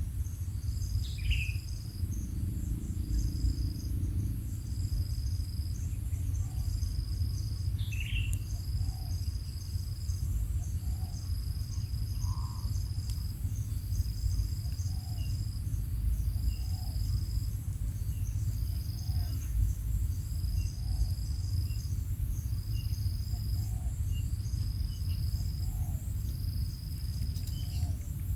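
An insect trilling in even high-pitched bursts about every 1.6 seconds over a low steady rumble, with a few brief chirps near the start and about eight seconds in.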